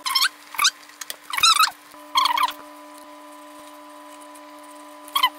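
High-pitched chirping calls from an animal in short wavering bursts, four in quick succession and then another near the end, over a steady electrical hum.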